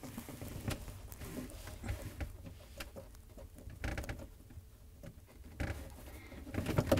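Plastic wire-harness connector and its wires being handled and pushed together by hand, with small scattered clicks and rustles that grow a little louder near the end.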